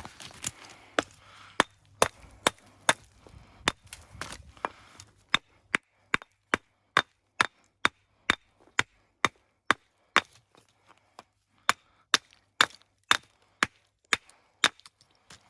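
Hammer striking stone in a steady run of sharp blows, about two a second, with some scuffling and shifting of stone among the first few blows.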